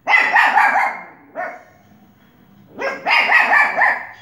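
Pomeranian barking in rapid, high-pitched volleys: a quick run of yaps, a single bark, then another quick run of yaps.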